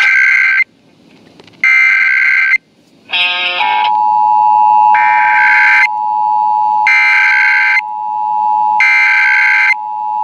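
Emergency Alert System header data bursts for a National Periodic Test: harsh digital buzzing bursts about a second long, with a second's gap between them. After about three and a half seconds the steady two-tone EAS attention signal (853 and 960 Hz) comes in and holds, while three more header bursts sound over it.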